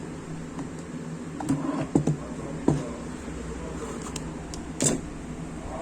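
Metal parts and tools of an angle grinder being handled during reassembly: several sharp clicks and knocks, one about a second and a half in, a quick pair near two seconds, another shortly after, and one near the end, over a steady low hum.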